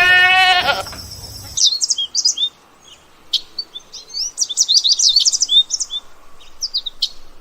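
A short bleat in the first moment, then small birds chirping in quick, varied, high calls for several seconds, stopping shortly before the end.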